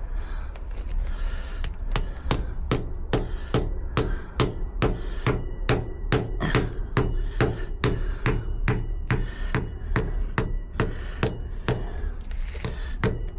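A hammer striking metal in a steady run of blows, about two and a half a second, each blow with a high metallic ring. It is driving in the threaded fixing of a garage door defender until it sits solid.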